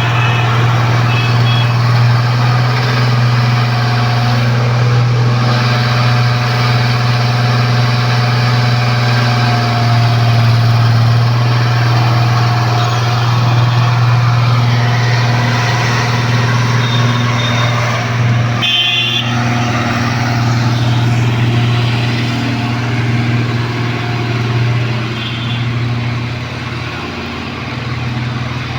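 Case 1107 road roller's diesel engine running steadily with a strong low hum, with a few short high beeps now and then.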